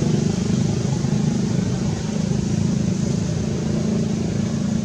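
An engine running steadily at an even speed, a low pulsing hum.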